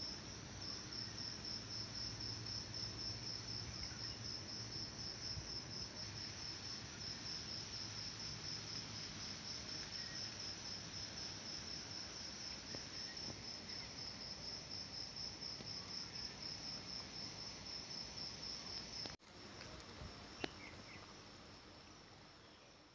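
Insects calling: a steady, high-pitched pulsing trill. About 19 seconds in it suddenly drops to a fainter level, and a single sharp click sounds a second or so later.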